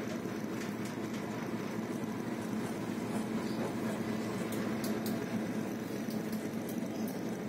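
Boat engine running steadily: a low, even drone that holds its pitch and level throughout, with a few faint ticks over it.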